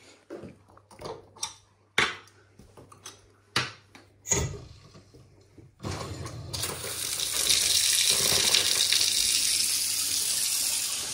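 A few sharp clicks and knocks, then about six seconds in a mixer tap is turned on and water runs steadily into a kitchen sink bowl and down the plughole. This is the first test run of a newly fitted tap and waste.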